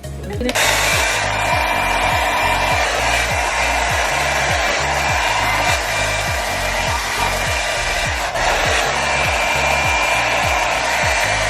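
Hand-held hair dryer switched on about half a second in and running steadily, over background music with a steady beat.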